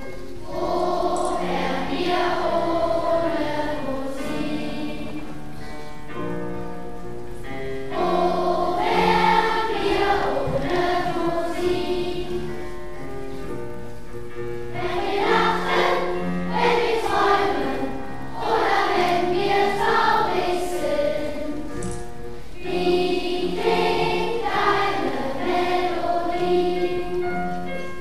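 Children's choir singing a song in German with electronic keyboard accompaniment, in four sung phrases with short keyboard passages between them.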